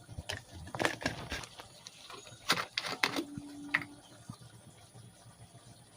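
A spoon and sauce bottles clicking and tapping against a bowl as spoonfuls of sauce are measured in: about half a dozen light knocks in the first four seconds, with a short low tone about three seconds in.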